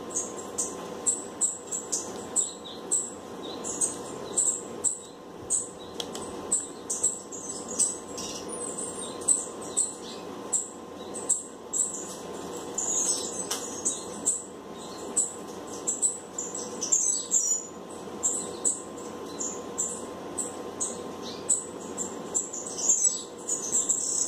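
Small birds chirping repeatedly, short high-pitched chirps one or two a second, over a steady low hum.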